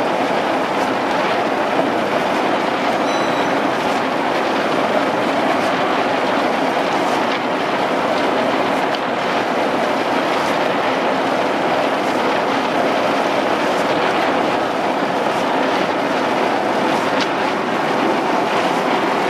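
A steady rattling rush of coffee cherries pouring off a metal chute into a bin and being raked.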